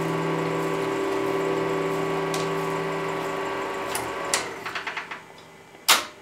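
8 mm film projector running with a steady motor whir and fluttering film clatter. About four seconds in it is switched off and runs down through a short string of clicks, followed by one sharp click near the end.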